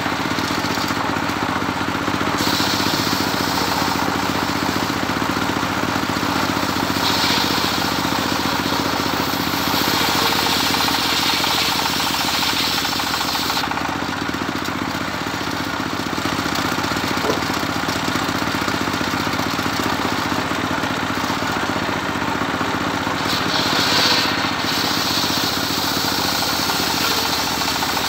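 Homemade engine-driven table circular saw ripping medang hardwood into beams: the engine runs steadily under load while the blade's cutting hiss swells and eases as the timber is pushed through.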